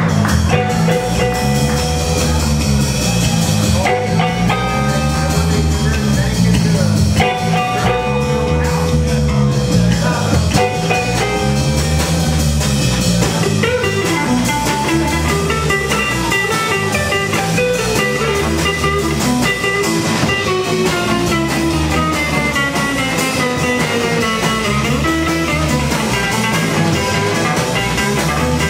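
Live rock band: electric guitar lead with long held notes over electric bass and drum kit. In the last third the guitar line steps slowly downward in pitch.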